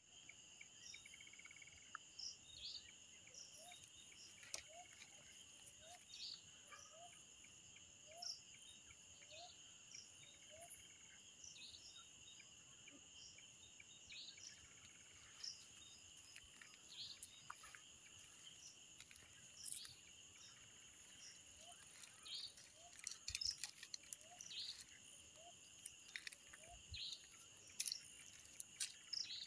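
Faint night insects: a steady high-pitched trill of crickets, with short scattered high chirps. Two spells of short rising low chirps repeat about every two thirds of a second, and a few clicks come near the end.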